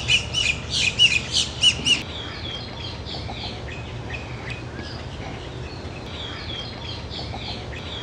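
Birds chirping and calling: a run of loud, repeated high chirps, about two or three a second, for the first two seconds, then softer, more scattered calls over a steady low hum.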